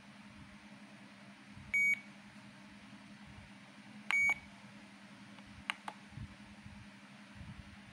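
FrSky Taranis X7 radio transmitter beeping twice, two short high beeps a little over two seconds apart, warning beeps for its start-up alerts such as failsafe not set. A couple of light clicks follow as its scroll-wheel button is pressed.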